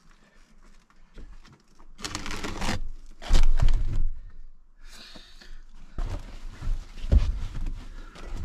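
A bicycle being loaded into a car boot and laid on a tarpaulin: rustling and crinkling of the sheet and scraping, with heavy knocks as the bike goes down, the loudest about three seconds in. Near the end a cloth is thrown over the bike.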